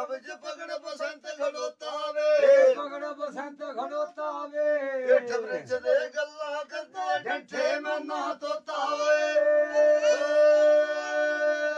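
Men's voices singing lambi bhakh, an unaccompanied, drawn-out folk song: a wavering, ornamented line with sharp clicks in between, which about nine seconds in settles onto one long held note.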